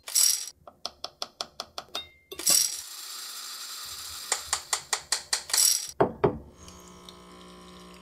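Quick sharp clicks and metallic ticks from cable-making hand tools, about four a second. About two and a half seconds in, a heat gun starts blowing with a steady hiss while the clicks go on. From about six seconds in, a steady electrical hum takes over.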